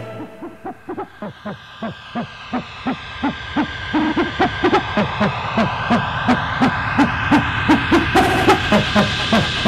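Electronic music build-up: a short pulsing note repeats about three times a second, growing steadily louder, with a slow sweeping whoosh up high. A bright hissing layer joins near the end.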